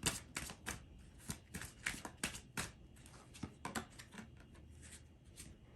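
A deck of oracle cards being shuffled by hand: a quick, irregular run of short papery clicks and snaps.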